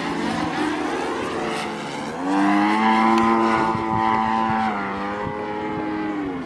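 Motor of a Taxi 2400 radio-controlled model airplane in flight, running with a steady propeller drone. About two seconds in, the note rises and gets louder, holds, then falls away near the end.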